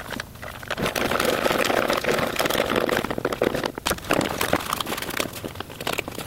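Handling noise of wires and plastic: rustling, small clicks and scrapes as camera wiring and connectors are tucked into a riding mower's plastic dash housing and a backup-camera monitor is pressed into place. The rustling is densest during the first half.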